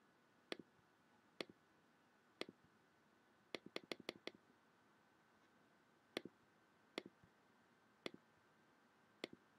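Faint laptop trackpad clicks, many as quick pairs, with a quick run of about five a little under four seconds in.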